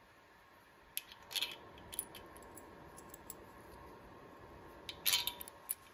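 Several light clicks and metallic clinks, the loudest cluster about five seconds in, as small metal shims and washers are handled and set on the rocker stud stand of a VW Type 1 cylinder head.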